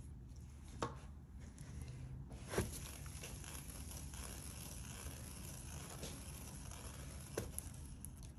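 Handling sounds as a wet-painted canvas is tilted and turned: three soft knocks, the loudest about two and a half seconds in, with light rustling over a low steady hum.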